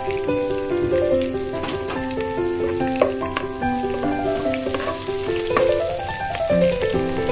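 Chopped green chillies and aromatics sizzling in hot oil in a pot, stirred with a spoon. Background music plays a melody of short stepping notes over the sizzle throughout.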